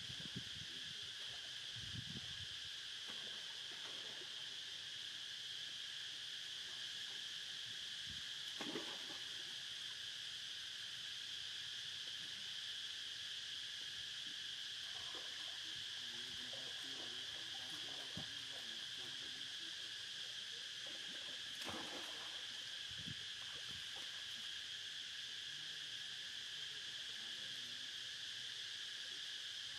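Steady, high-pitched drone of an insect chorus, with a couple of faint brief sounds about nine and twenty-two seconds in.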